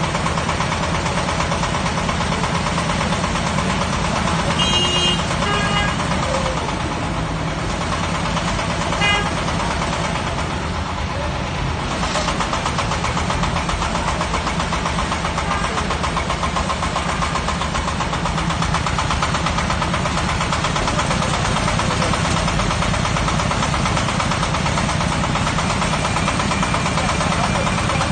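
A hydraulic well-drilling rig's engine running steadily with an even, fast rhythm, with a few brief high-pitched squeaks about five and nine seconds in.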